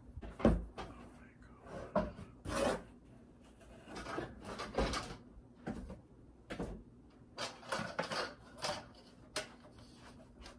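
Plastic dollhouse playset parts and their packaging being handled and lifted out of the box: irregular rustles and knocks, the loudest a knock about half a second in.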